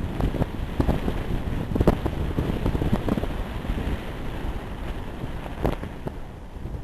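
Wind buffeting the camera's microphone: a steady low rumble broken by irregular gusty thumps.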